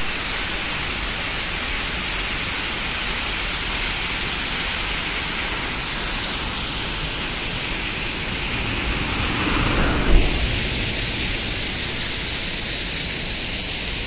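Steady, loud rush of water, an even hiss with no rhythm, with one brief bump about ten seconds in.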